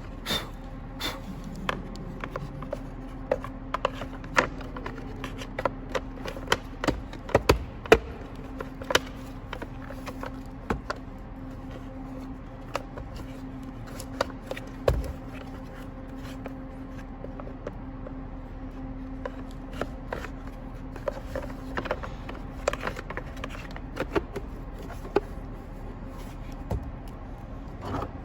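Irregular clicks, taps and knocks of plastic blower-motor casing parts and screws being handled and fitted together, with a faint steady hum underneath through most of it.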